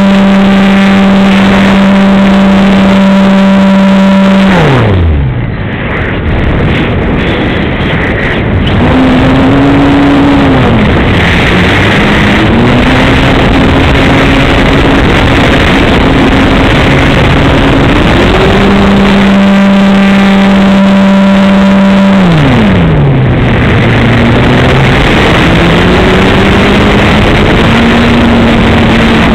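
Electric motor and propeller of a Carbon-Z Yak 54 RC aerobatic plane, heard from a camera on its nose. A steady whine at full throttle drops sharply about five seconds in, rises and falls at part throttle, comes back to full about eighteen seconds in, and drops again a few seconds later. Heavy wind rush over the microphone lies under it all.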